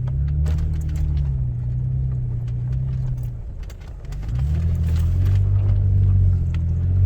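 Toyota FJ Cruiser's V6 engine pulling the truck through wet sand dunes. The revs hold, sag about four seconds in, then rise and get louder as it drives on, with light knocks and rattles over the top.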